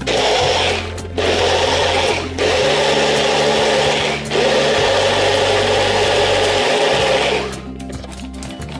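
Personal bullet-style blender motor running at speed, churning chopped pieces in liquid, with three brief breaks in its run and stopping about seven and a half seconds in. Background music with steady low notes plays underneath.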